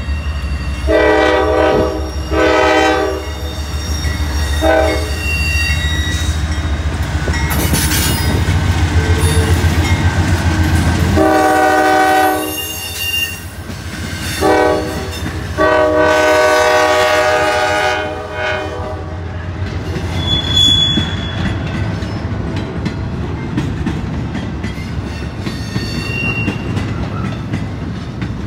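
CSX freight locomotive horn sounding a series of long and short blasts as the train approaches and passes, over the heavy low rumble of its diesel engine. From about 18 seconds in, the horn stops and there is the steady rumble of container cars rolling by, with a few brief faint high squeals.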